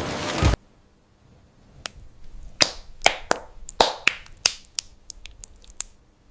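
A loud steady sound cuts off suddenly about half a second in. Then come a dozen or so sharp, irregular clicks or snaps over about four seconds.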